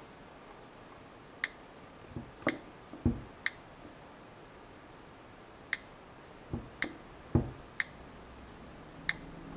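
iPod Touch on-screen keyboard clicks as a search is typed letter by letter: about seven short, sharp ticks, irregularly spaced about a second apart. A few dull taps of a fingertip on the glass fall between them.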